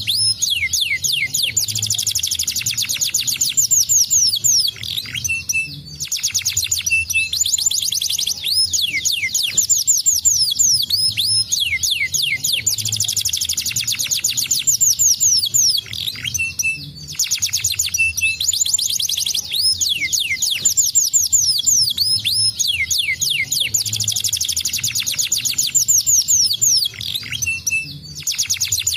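Domestic canary singing a long song of fast, tightly packed trills of sweeping high notes, breaking off briefly about every eleven seconds.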